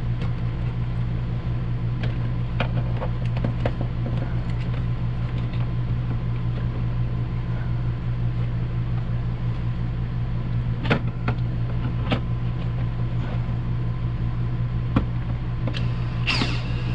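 Scattered light clicks and taps of screws going into a ceiling light fixture being screwed back into place, over a steady low hum.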